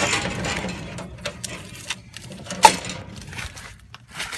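Close handling noises: rustling and light knocks, with one sharp knock a little past halfway.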